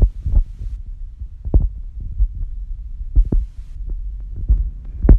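Wind buffeting the microphone: a loud, irregular low rumble with sudden thumps every second or so.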